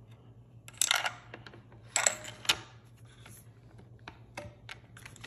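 Tikka T3X bolt-action rifle in .22-250 being loaded and its bolt worked closed: metal sliding and clicking in two louder bursts about a second apart, then a few light clicks. The bolt is very hard to close on a factory round, which the owner puts down to a headspace problem.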